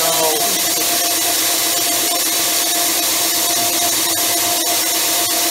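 Highland Park lapidary core drill boring down through very hard rock: a steady grinding hiss from the core bit, with a steady hum from the machine running under it.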